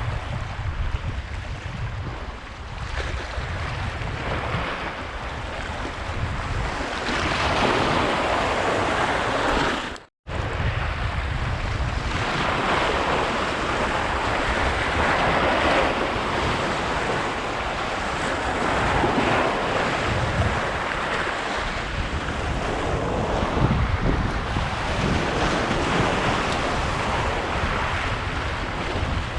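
Sea waves washing against the shore, swelling and ebbing every few seconds, with wind buffeting the microphone as a low rumble. The sound cuts out for a moment about a third of the way in.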